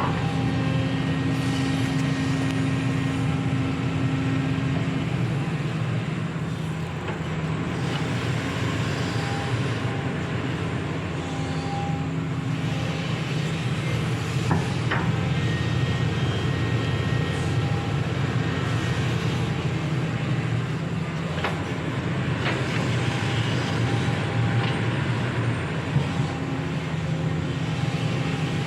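SANY hydraulic excavator's diesel engine running steadily under work, with a couple of sharp knocks partway through.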